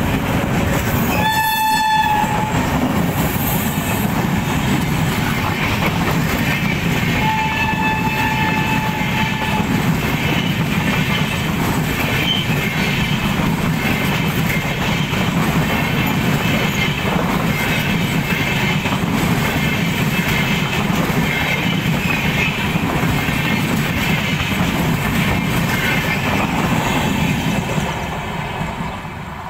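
Indian Railways passenger train running past, with a steady rumble and rattle of coach wheels on the rails. The locomotive sounds its horn twice: a short blast about a second in and a longer one around eight seconds in. The train sound fades near the end as the last coach moves away.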